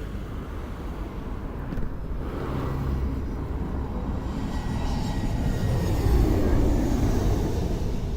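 Airbus A320-214 airliner's CFM56 jet engines rumbling as it comes in to land, growing louder and peaking about six seconds in.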